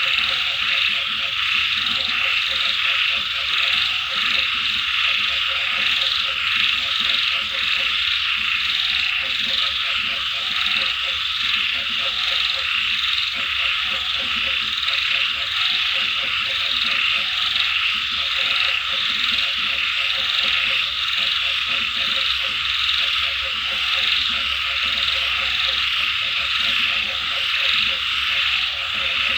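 A chorus of frogs croaking in runs of rapid pulsed calls that come and go every few seconds, over a dense steady high-pitched hiss.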